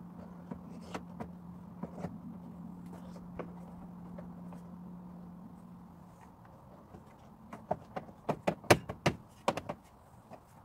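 A steady low hum fades out over the first several seconds. Near the end comes a quick run of sharp clicks and knocks as the car battery's terminal and plastic cover are handled and fitted back on.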